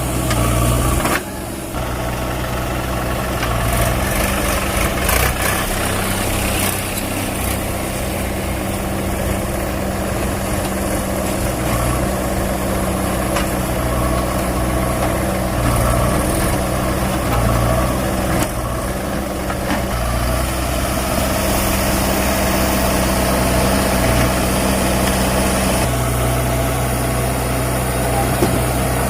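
JCB 3DX backhoe loader's diesel engine running under working load, its pitch stepping up and down every several seconds as the machine works. There is a brief drop in level about a second in.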